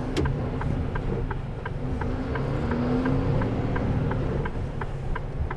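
Inside the cab of a Mercedes Antos 18-tonne lorry: the diesel engine rumbles steadily while a turn-signal relay ticks evenly, about three clicks a second, with one sharper click about a second in.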